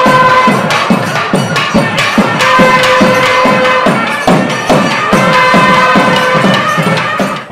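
Nadaswaram and thavil temple music: the reed pipe holds long notes over rapid thavil drum strokes that drop in pitch and sharp stick clicks. It breaks off suddenly at the very end.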